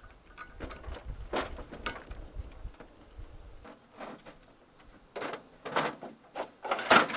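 Irregular clicks, clatter and rattles of wires and small parts being handled and pulled at the neck of a CRT TV as it is stripped for scrap. The loudest knocks come near the end. A low rumble runs under the first half and then stops.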